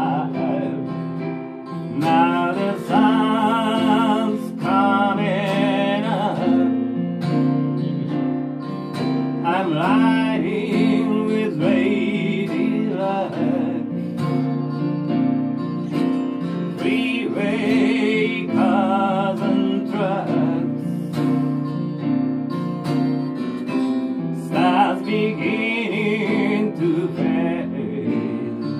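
Live acoustic pop song: a steel-string acoustic guitar strummed with keyboard accompaniment, and a man singing in several phrases.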